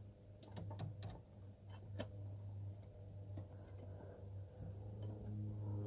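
Scattered sharp metallic clicks and taps of a spanner being worked in around the fan bolts in an engine bay, the loudest about two seconds in, over a low steady hum.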